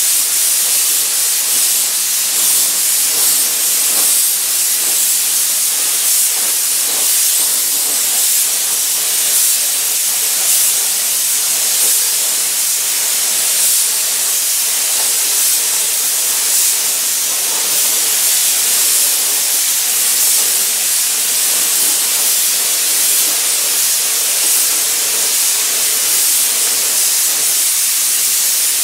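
Compressed-air gravity-feed paint spray gun hissing steadily as it lays down silver paint.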